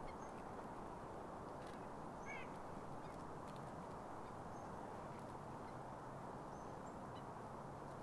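Steady hiss of wind, with a few faint, short bird chirps; the clearest chirp comes about two seconds in.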